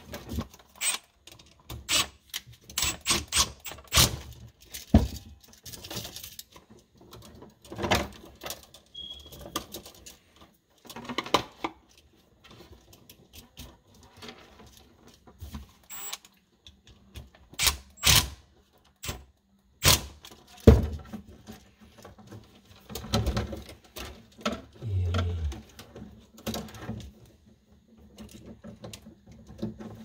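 Irregular clicks, taps and small knocks of hands working a wall receptacle, its wires and a cordless driver at a plastic electrical box while the red wire is fastened to the brass terminal screw. A short low hum sounds about 25 seconds in.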